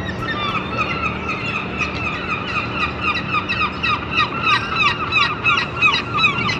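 Gulls calling: a fast, continuous run of short yelping notes from several birds, getting busier toward the end, over a low steady hum.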